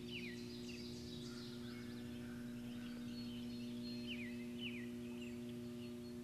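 Songbirds calling in the open: short, quick downward-sliding chirps, often in pairs, over a steady low hum.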